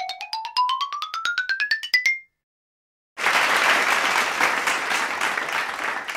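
A quick rising run of short, bright pitched notes, about nine a second, climbing steadily for about two seconds and stopping. After about a second of silence, a group of people applauding.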